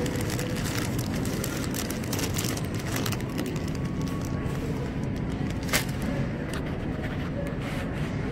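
Crinkling and crackling of a plastic bag of cherries being handled, over the steady low hum of a supermarket. The crinkling is densest in the first three or so seconds, with one sharp click a little before six seconds in.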